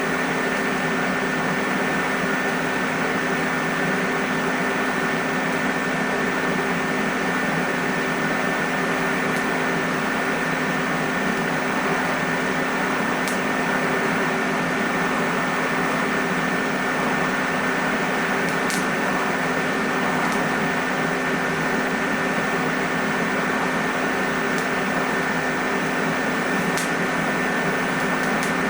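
Steady machine hum with a few held tones over an even noise, and a few faint ticks scattered through it.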